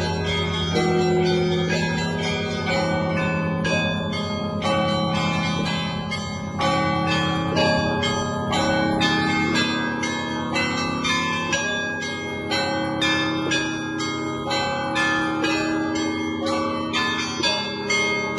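Orthodox church bells of the Spaso-Preobrazhenskaya bell tower rung in a continuous peal: small bells struck in quick succession, several strokes a second, over the long ring of larger, deeper bells.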